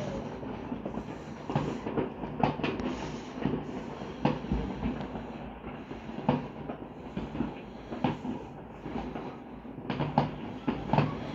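New Year's Eve fireworks going off across the neighbourhood, heard through a window pane: irregular sharp bangs and pops, a few seconds apart and bunching together near the end, over a continuous rumble of more distant explosions.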